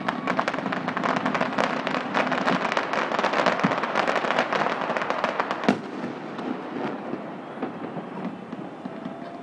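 Fireworks display: a dense, rapid crackle of many small bursts, then a single sharper bang just before the middle, the loudest moment, after which it thins to scattered pops.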